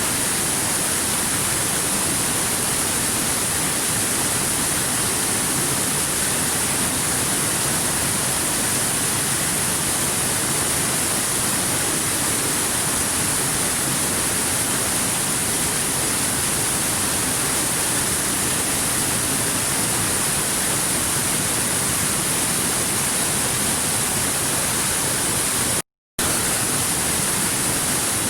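Stream water rushing over rocks, a steady, unbroken hiss, cut by a split-second dropout to silence near the end.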